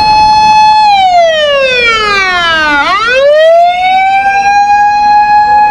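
A loud siren wail: it holds a high tone for about a second, slides steadily down in pitch for about two seconds, then climbs back up and holds the high tone again. It starts and stops abruptly.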